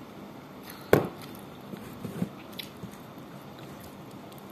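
A drinking glass set down on a table with one sharp clunk about a second in, followed by a few softer clicks and the squishy sounds of food being handled and eaten by hand.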